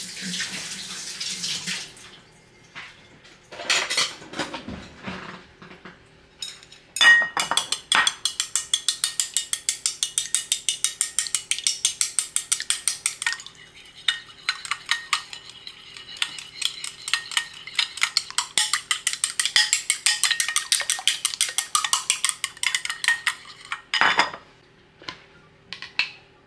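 Raw eggs beaten hard with chopsticks in a ceramic bowl: rapid, even clicking of the chopsticks against the bowl for about sixteen seconds. A short hiss comes at the start, and a single knock near the end.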